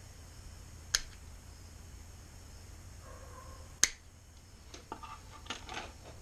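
Metal grille mesh being cut with hand snips: two sharp snips about three seconds apart, then light rustling and clinking as the mesh is handled.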